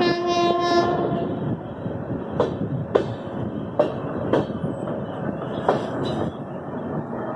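Train running slowly through a station, heard from an open coach door: a train horn sounds for about a second at the start, then the wheels clack over rail joints and points several times over a steady running rumble.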